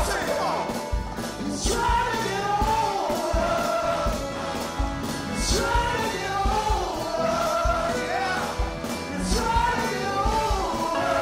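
Live soul band playing a song, with voices singing a gliding melody over a steady drum beat.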